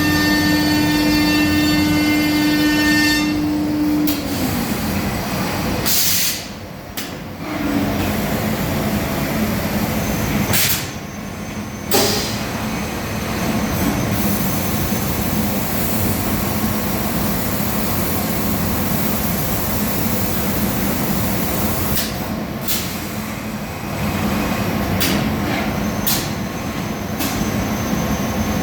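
CNC woodworking machining centre running on furniture parts: a steady spindle whine over cutting noise. The whine drops in pitch about four seconds in, and the noise dips briefly twice, a little after the first quarter and again before the middle.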